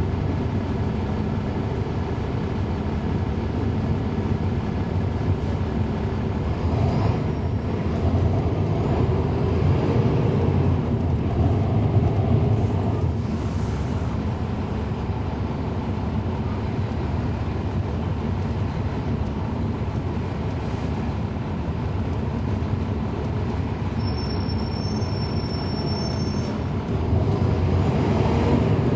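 Cummins ISL9 diesel engine of a NABI 40-SFW transit bus running steadily. It gets louder for a few seconds around ten seconds in and again near the end.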